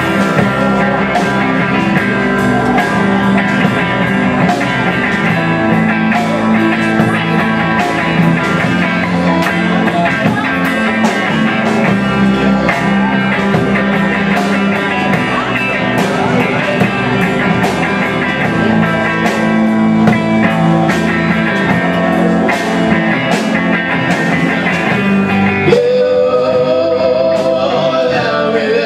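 Live rock band playing an instrumental passage: electric guitar over drums and bass guitar, with regular drum hits. Near the end a single held note wavers in pitch.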